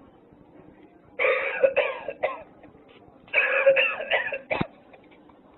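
Recorded coughing from a novelty coughing ashtray: two fits of several hacking coughs each, about two seconds apart. A sharp click comes at the end of the second fit.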